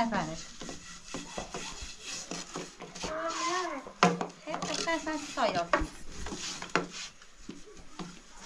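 Household clatter: knocks and rubbing of wooden things and dishes being handled, with one sharp knock about four seconds in. A voice calls out briefly twice in between.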